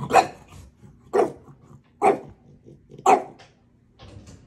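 A dog barking four times, about once a second.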